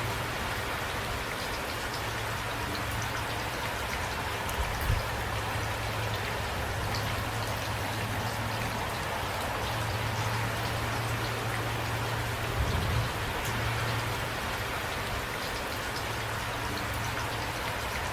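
Steady rain with scattered individual drops ticking, over a constant low rumble. Two short low thumps, about five seconds in and near the thirteen-second mark, stand out as the loudest moments.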